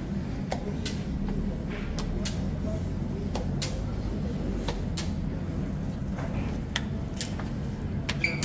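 Steady low machine hum with scattered sharp ticks and taps from hands working at a clay tandoor oven as samsa pastries are pressed onto its inner wall.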